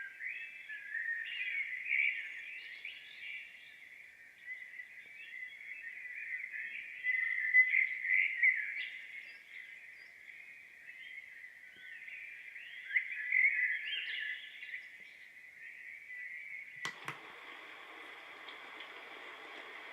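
Birdsong sound track playing through the NURSAL white noise machine's small speaker: chirps and trills, thin and without any low end. About 17 seconds in there is a click and the machine switches to a steady rushing noise, the next of its eight sounds.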